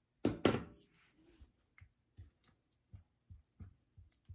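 Silicone spatula knocking twice against a glass mixing bowl as the applesauce is shaken off it. This is followed by a run of light taps and scrapes against the glass as the spatula stirs applesauce into flour.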